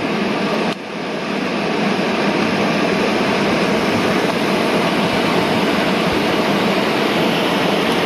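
Waterfall rushing steadily, a continuous even noise of falling water with a short dip in level just after the start.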